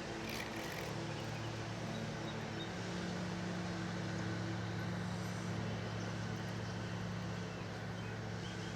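An engine running steadily at an even speed: a low, constant hum that holds the same pitch throughout.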